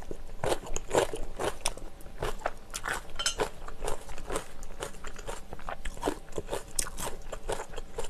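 Close-miked chewing of a mouthful of seafood rosé pasta with glass noodles: a run of short, irregular mouth clicks and smacks, a few every second.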